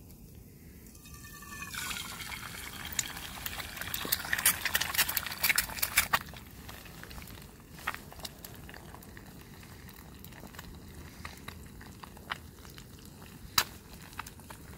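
Liquid hissing and crackling in a hot cooking pan. The hiss builds from about two seconds in, with a dense crackle about four to six seconds in, then eases to scattered crackles and pops.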